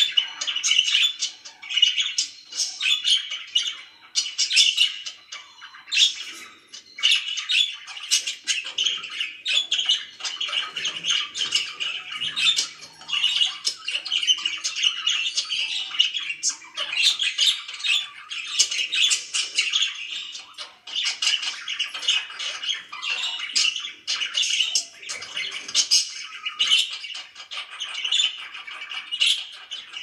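Several budgerigars warbling and chattering in a continuous, busy stream of rapid short calls.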